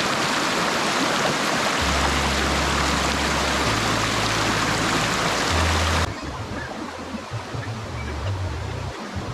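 Rushing waterfall water, a dense steady roar, with low bass notes of music underneath. About six seconds in, the water noise drops abruptly to a softer flow.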